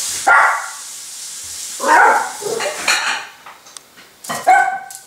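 Miniature Pinscher puppy giving a few short, high barks, about four in all. It is barking at a spoon in its bowl, which it is afraid of.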